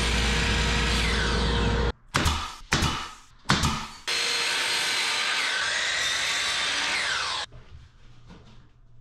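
DeWalt sliding compound miter saw cutting MDF door casing: the motor runs loud and steady, the pitch falls near the end of the run, and it cuts off about two seconds in. Three sharp knocks follow, then the saw runs again for about three seconds and slows the same way before going quiet.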